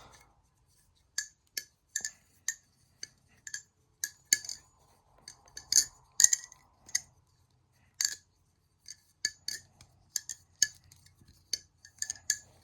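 A balisong (butterfly knife) being flipped: its handles clack against each other and the blade in many sharp metallic clicks at an uneven pace, some in quick pairs.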